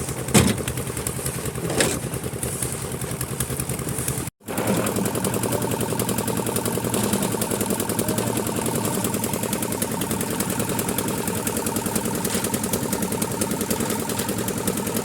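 Engine of a concrete mixer machine running steadily, with two sharp metallic clanks in the first two seconds. The sound cuts out for an instant about four seconds in, then the same steady running carries on.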